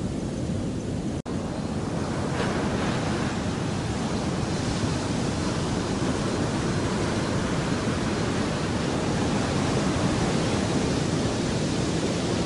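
Steady rush of surf breaking on the shore, with some wind on the microphone. The sound cuts out for an instant about a second in, then carries on a little brighter.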